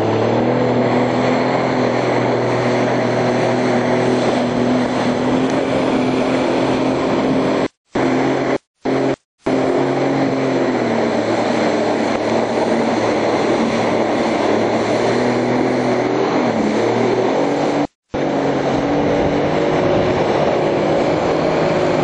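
Jet ski engine running steadily at speed over the water, its revs dipping briefly and climbing again about three-quarters of the way through. The sound cuts out briefly four times.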